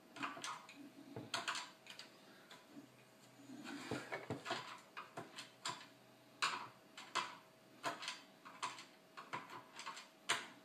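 Irregular small metallic clicks and taps of a magnetized Phillips screwdriver working a screw into the metal chassis of a Dell PowerVault PV-122T tape autoloader, with a faint steady hum underneath.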